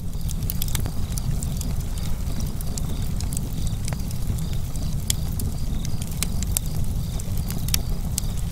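Wood fire crackling: irregular sharp pops and snaps over a steady low rumble.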